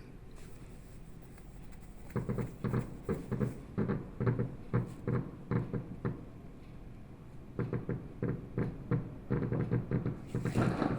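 Fireworks going off in a rapid series of dull pops and thuds, several a second, starting about two seconds in, pausing briefly past the middle, then picking up again.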